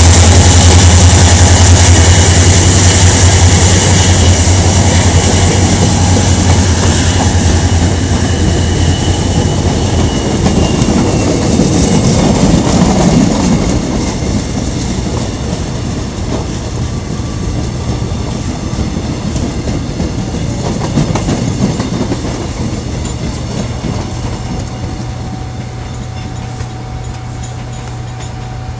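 A diesel locomotive pulls a passenger train out past the listener. For about the first ten seconds its engine gives a deep, steady hum. Then the coaches roll by with the wheels rumbling on the rails, loudest after about twelve seconds, and the sound fades slowly as the train draws away.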